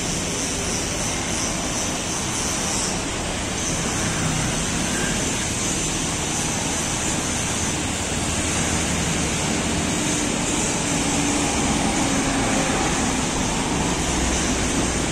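Steady road traffic close by: the engines and tyres of motorcycles and a truck passing on the street, a continuous rumble that grows a little louder in the second half.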